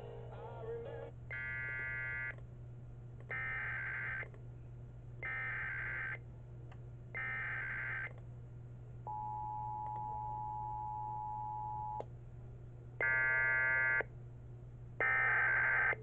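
Emergency Alert System signals from an EAS decoder: a song cuts off in the first second. Then come four one-second bursts of SAME digital header tones about two seconds apart, a steady three-second two-tone attention signal, and three louder data-tone bursts near the end.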